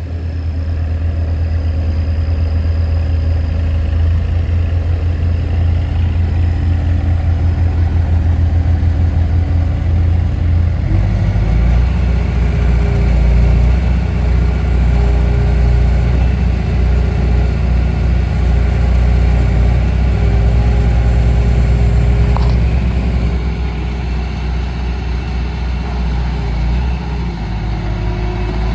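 Bobcat T320 loader's diesel engine running steadily, its engine note shifting to a different speed about a third of the way in, then easing slightly near the end.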